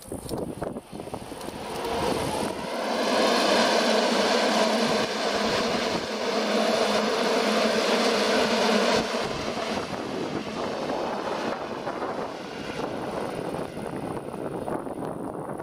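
Rhaetian Railway Ge 4/4 II electric locomotive passing with a train of coaches, its motors and cooling blowers giving a steady, pitched hum. The hum is loudest from about two to nine seconds in, then gives way to a quieter rumble of coach wheels on the rails as the train moves away.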